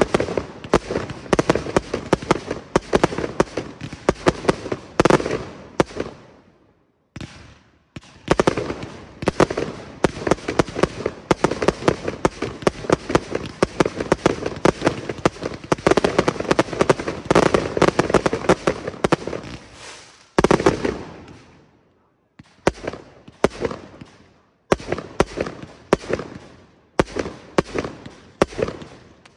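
Aerial fireworks firing in rapid salvos, a dense run of launches and bursting shells. The firing stops twice for about two seconds, a quarter and two-thirds of the way in, and breaks into shorter separate volleys near the end.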